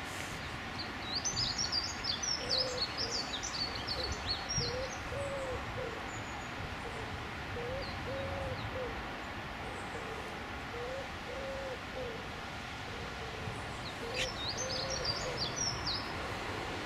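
A dove cooing in short repeated phrases, each a few soft hooting notes, every two to three seconds. A small songbird twitters rapidly over it for a few seconds near the start and again near the end.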